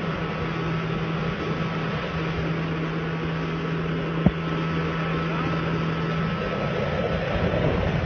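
Motorboat engine running steadily at speed, with a low, even hum under a rush of wind and water. One sharp click comes about four seconds in, and the engine hum breaks up near the end.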